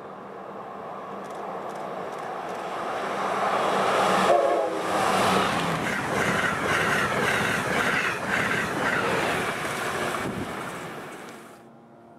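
Amtrak Acela Express trainset passing close by at high speed: a rush of wheel and air noise swells over the first few seconds and stays loud as the cars sweep past. It cuts off suddenly near the end.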